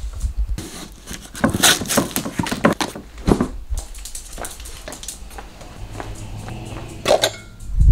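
Handling noise from a large cardboard box being moved about: a run of scrapes and knocks over the first few seconds, then quieter, with a sharp knock about seven seconds in and a heavier thump at the end.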